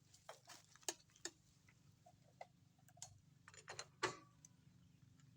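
Near silence with a faint low hum, broken by scattered light clicks and knocks at irregular intervals, the loudest about four seconds in.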